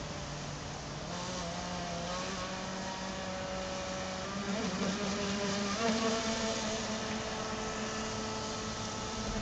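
Motor of a Thunder Tiger Outlaw radio-controlled boat running at speed, a steady whine over a rushing noise, its pitch wobbling and shifting about five seconds in.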